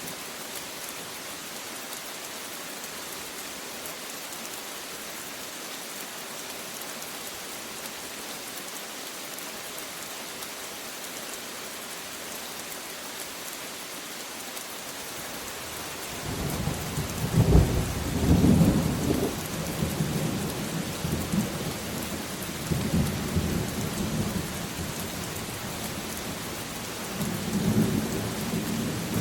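Steady heavy rain falling, then about halfway through a loud clap of thunder breaks in and rolls on in long low rumbles that swell again near the end.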